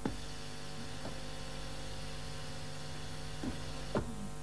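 Steady electrical hum with four short knocks, typical of a pneumatic multi-position unit (two double-acting cylinders joined together) clacking into its end positions.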